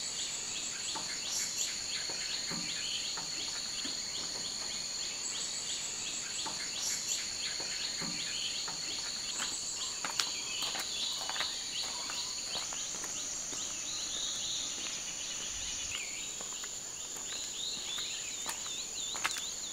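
Forest insects droning steadily in high-pitched tones, with a run of quick, repeated short chirps over the first half and a brief wavering trill near the end.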